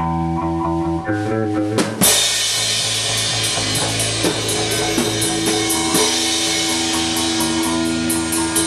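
Horror punk band playing live in rehearsal: held electric guitar chords, then the drum kit and full band come in together with a crash about two seconds in and keep a steady rock beat.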